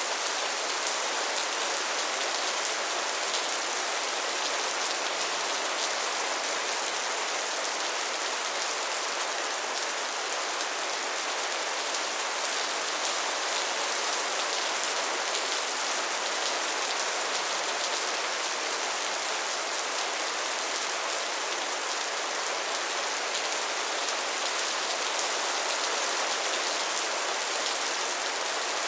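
Steady soft rain falling, an even hiss of many fine drops pattering on a surface.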